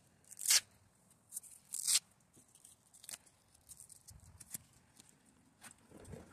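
Sanding disc being pulled off a small sander's foam backing pad: two short rips about a second and a half apart, the first the loudest, then a few light clicks and rustles as the disc is handled.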